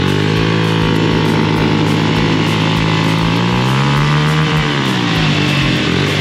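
Yamaha RX100 two-stroke motorcycle engines running, held at raised revs. One is revved up and back down about four seconds in.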